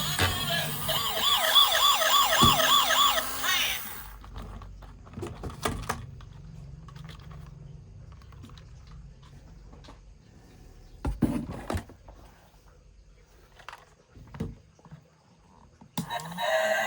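A toy vehicle's electronic siren yelping rapidly, about three wails a second, that cuts off about four seconds in. Scattered clicks and knocks follow, and a loud pitched sound starts again near the end.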